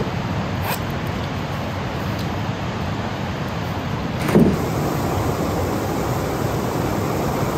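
Steady rushing of river water over rocks and a small falls, an even noise with no let-up, with a brief knock about four seconds in.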